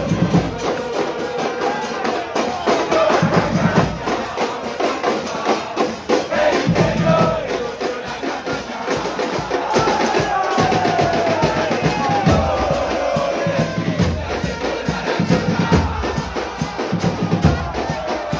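Football supporters' band drumming a steady beat on bombos and snare drums, while the crowd sings a terrace chant along with it.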